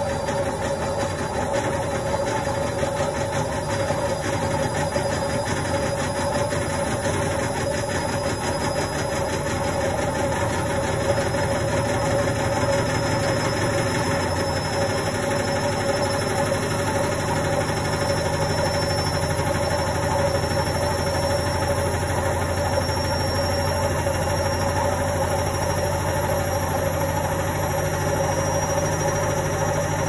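Indesit front-loading washing machine running with a steady hum. A low rumble grows stronger about halfway through, and a faint high whine rises slowly in pitch.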